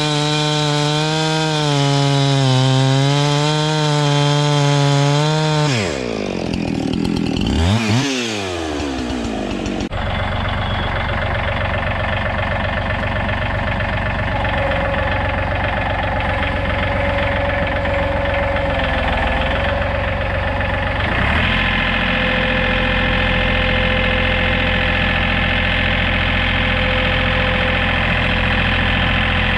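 Husqvarna 372XP two-stroke chainsaw cutting through a log at full throttle, its note wavering under load. About six seconds in it drops off and is revved once more. From about ten seconds in a John Deere compact tractor's three-cylinder diesel engine runs steadily, its note changing about twenty-one seconds in.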